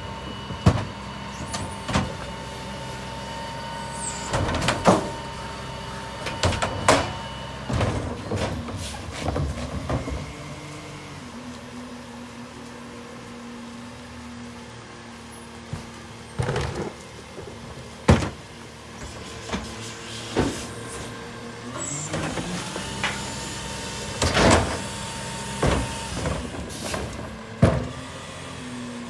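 Rear-loader garbage truck at work: its engine runs steadily under repeated loud bangs and clatter as plastic garbage carts are tipped and knocked against the rear hopper. A thin steady whine comes in for stretches, during the first several seconds and again near the end.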